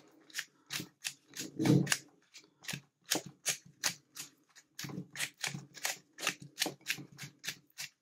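Plastic number wheels of a five-wheel combination bike lock being turned by hand to scramble the code: an irregular run of short sharp clicks, about three to four a second, with one louder dull bump about two seconds in.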